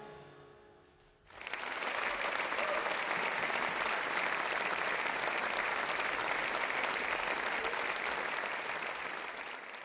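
Concert audience applauding, starting about a second in as the jazz orchestra's final chord dies away, steady, then fading near the end.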